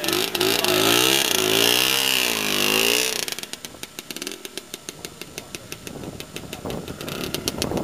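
Lambretta scooter's two-stroke single-cylinder engine pulling away: it revs up and down for about three seconds, then drops to a quieter buzz as the scooter rides off.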